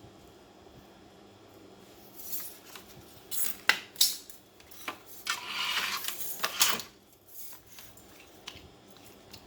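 Small metal parts and tools being handled: a few sharp clicks and clinks about halfway through, a short scraping rustle just after, and one more sharp click.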